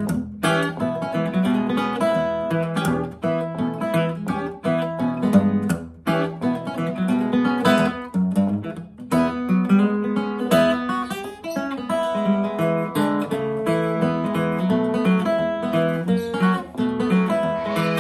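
1930 Gibson L-5 archtop acoustic guitar fingerpicked with a thumb pick in open D tuning, capo at the second fret: a continuous run of plucked bass notes under a melody on the higher strings.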